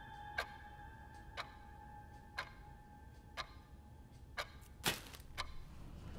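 Analogue clock ticking once a second, over a steady high tone that fades out about four seconds in. A louder double click comes near the end.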